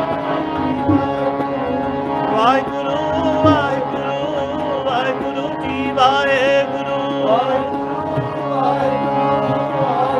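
Sikh kirtan in Raag Kaanraa: a harmonium holding steady chords, tabla keeping time underneath, and a wordless melodic line sliding and ornamented above between sung verses.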